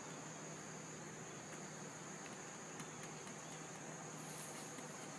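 Faint, steady high-pitched insect chorus, like crickets, over a background hiss, with a faint low hum beneath.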